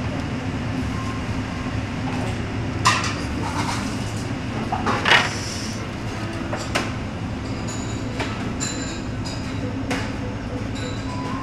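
Cafeteria room tone: a steady low hum from refrigerated display cases and kitchen machinery, with occasional sharp clinks and knocks, the loudest about five seconds in.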